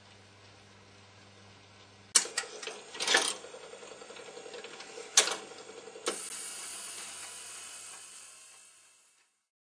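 Jukebox record-changer mechanism working as the record is taken off the turntable. A series of sharp mechanical clicks and clunks starts about two seconds in, and a steady whirring hiss follows, fading out near the end.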